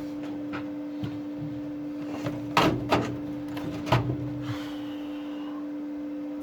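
A few sharp knocks and clatters, the loudest a pair about two and a half seconds in and another about four seconds in, over a steady electrical hum.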